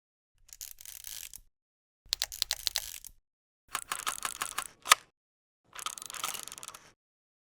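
Camera shutter sound effects: four separate bursts of rapid mechanical clicking and ratcheting with dead silence between them. The third burst ends in one sharp, loud click.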